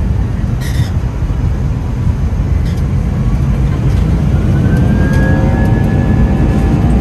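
Airbus A320 heard from inside the cabin: a steady low rumble as it rolls on the runway, and from about halfway through the jet engines' whine rises in pitch and the whole sound grows louder as they spool up for takeoff.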